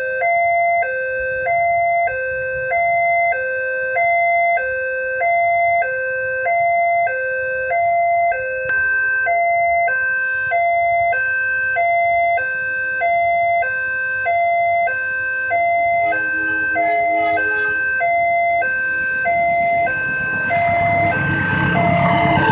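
Railway level-crossing warning signal sounding a steady two-tone electronic alarm, switching between a lower and a higher chime about every three-quarters of a second. Near the end a rumble and hiss rises under it as a rail vehicle approaches the crossing.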